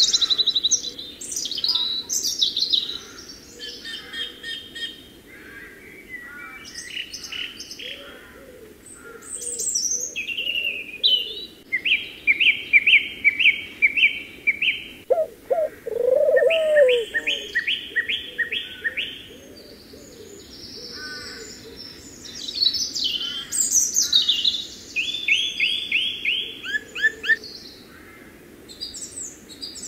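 Songbirds singing: assorted chirps and fast trills of rapidly repeated notes, with one lower, brief call about halfway through.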